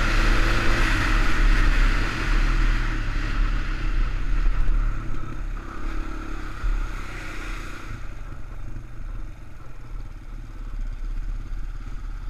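ATV engine running under way with heavy wind buffeting on the mounted camera's microphone; it eases off and the quad slows from about eight seconds in.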